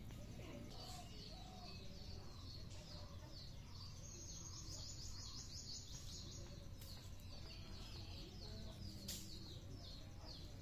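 A small bird chirping in quick, repeated short notes, several a second, busier about halfway through. A few faint clicks from a boti blade slicing green chillies.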